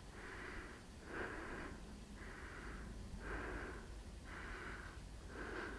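A person breathing hard and fast close to the microphone, a rushing breath about once a second: winded from climbing at over 13,000 feet.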